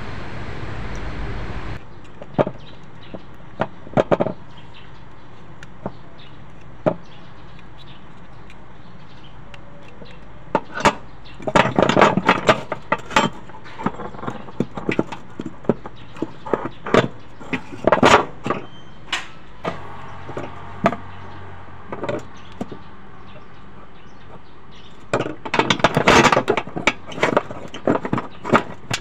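Clicks, taps and rattles of a fuel pump motor, its plastic bracket and wires being handled and fitted together by hand, coming in irregular bunches. A steady background noise fills the first two seconds and stops abruptly.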